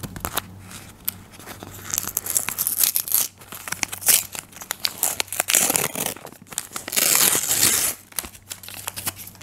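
Paper cutouts handled by hand, crinkling and rustling, with stretches of peeling and tearing as a thin paper strip is pulled off; loudest about seven seconds in.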